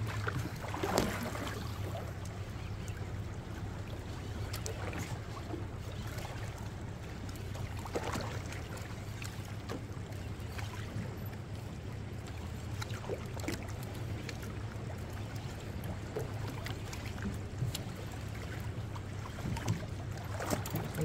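Steady low hum of a boat's engine idling, with water washing against the hull and a few faint scattered clicks.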